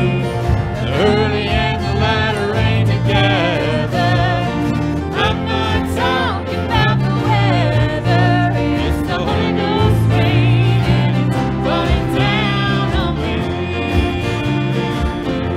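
Live church worship band playing a gospel song, with acoustic guitars, drums and piano under voices singing.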